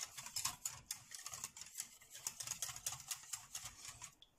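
Wire whisk beating a thin milk, egg and cornstarch pastry-cream mixture in a metal saucepan: rapid, irregular clicking and scraping of the wires against the pot, which stops just before the end.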